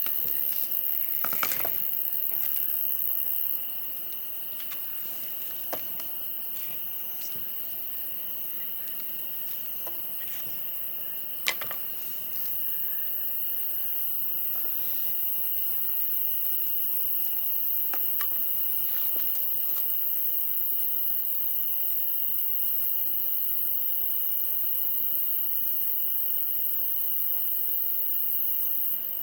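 Wood campfire crackling with scattered sharp pops, the loudest about eleven seconds in, over a steady insect trill.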